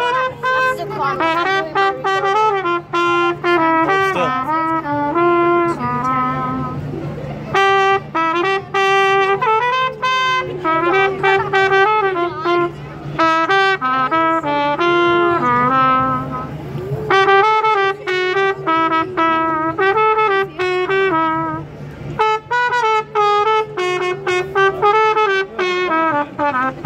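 Trumpet played solo in melodic phrases of quick, changing notes, with short breaks between phrases, over a steady low hum.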